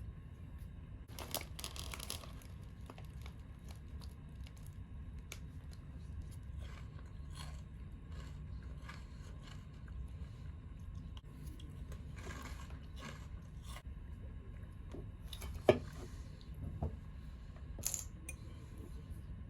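Steady low hum of the ferry's engines carried through the ship, with scattered small crinkling and clicking handling noises and one sharp click about three-quarters of the way through.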